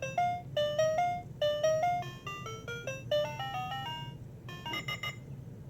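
A hidden-camera alarm clock's built-in speaker playing its selectable electronic alarm tones: a quick tune of short beeping notes stepping up and down, which stops about five seconds in.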